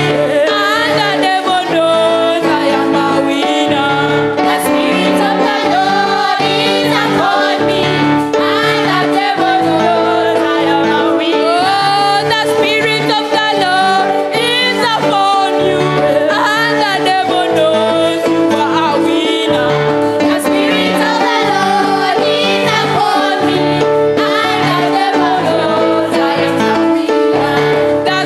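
Gospel worship song: a singer with vibrato over held chords and a bass line that changes every second or two.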